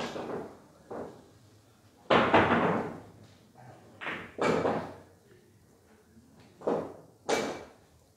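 Billiard balls rolled by hand across a boccette table, knocking against the rubber cushions: a string of separate thuds, the loudest about two seconds in and more around four and seven seconds in.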